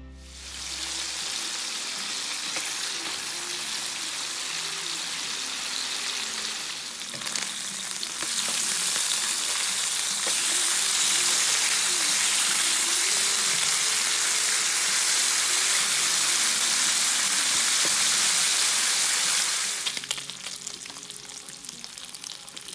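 Marinated beef short ribs (kalbi) sizzling and frying in oil in a hot pan, a steady crackling hiss. It grows louder about a third of the way in and falls away near the end.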